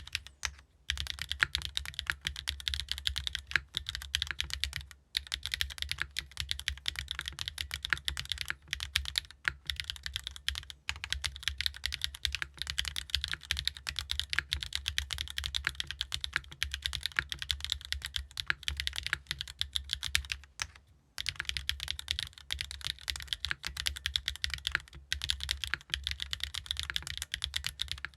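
Continuous fast typing on a mechanical keyboard fitted with Gateron RAW switches, an aluminium plate with O-ring mount, no case foam, and ABS double-shot keycaps. There are brief pauses about 5 and 21 seconds in.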